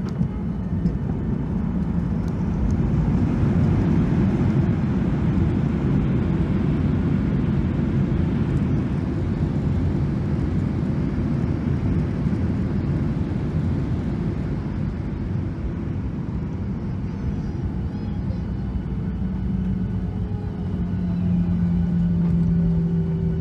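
Steady rumble of a passenger jet heard from inside the cabin, swelling a few seconds in; a low steady hum comes in near the end.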